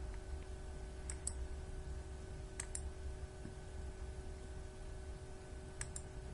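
Quiet room tone with a faint steady hum, broken by three pairs of light clicks, about a second, two and a half seconds and six seconds in.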